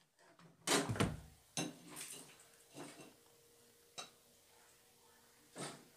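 Steel ladle scraping and knocking against a steel cooking pot and a clay serving dish as thick chicken curry is scooped out: a run of short, irregular scrapes, the loudest about a second in, and a sharp tap about four seconds in.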